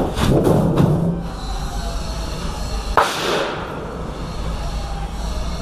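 Handling noise from a large thin sheet panel: a few rattling flexes near the start and one sharp slap about three seconds in, over a steady low rumble.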